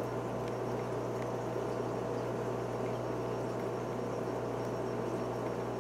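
Steady low hum with a faint hiss from running aquarium equipment, unchanging throughout.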